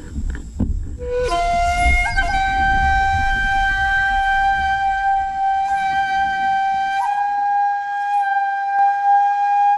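Outro music: a flute holding one long note that comes in about a second in, with a low rumble underneath that fades away.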